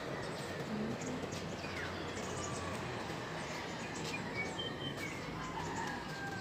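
Steady outdoor background hum with a few faint bird chirps and short whistles scattered through it.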